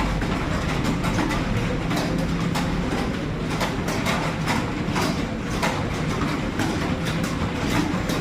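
Computer keyboard keys clicking fast and unevenly in continuous speed typing, over a steady background hum.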